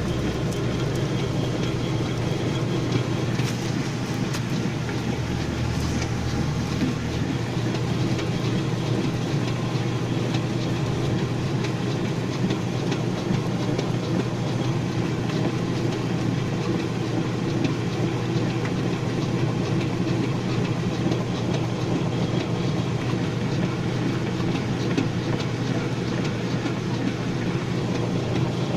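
Maytag washing machine orbital transmission running open under test, a steady hum with rapid light ticking from its gears. Its stuck shaft has been freed and the transmission now works.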